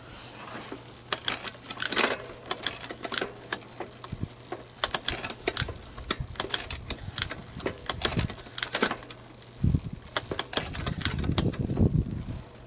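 Bicycle front shifter and drivetrain being worked by hand: irregular clicks and rattles, with a few low thumps near the end. The old thumb shifter is not catching in gear because it is dirty and gunked up.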